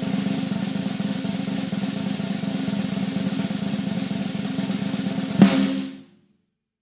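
Background music: a sustained drum roll over a held low note, ending on a final hit about five and a half seconds in and fading out just after.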